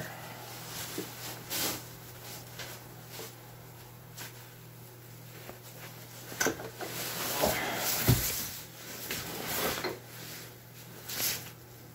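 Scattered clinks and knocks of a socket and hand tools against metal as a hand works down into a cramped engine bay to reach the spark plug. The knocks bunch up in the middle and come again near the end, over a steady low hum.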